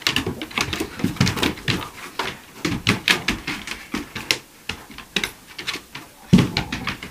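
Dogs' claws clicking and scrabbling on bare wooden floorboards as two dogs play-wrestle, a fast, irregular patter of taps, with a louder thump a little after six seconds in.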